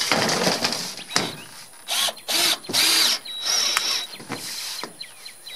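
Cordless drill driving a screw through a 5V-crimp metal roof panel in several short bursts.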